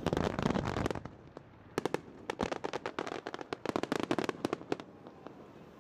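Aerial fireworks crackling: rapid clusters of many sharp pops, dense in the first second, breaking off, then crackling again from about two seconds in until near the end, when they die away.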